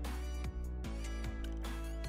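Background music with a steady beat: held notes over regular low thumps.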